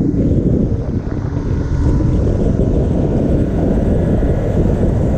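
Wind buffeting the microphone on a small boat, a steady low rumble.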